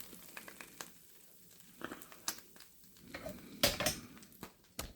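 Faint sizzling of freshly cooked bacon and onion rings, with scattered small clicks and a louder knock of handled cookware about three and a half seconds in.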